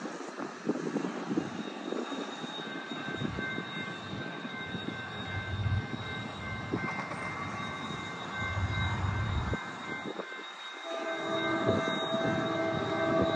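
Norfolk Southern freight train approaching behind GE C44-9W diesel locomotives, engines rumbling. The locomotive's air horn sounds faintly, then a much louder chord comes in about eleven seconds in as the train draws near.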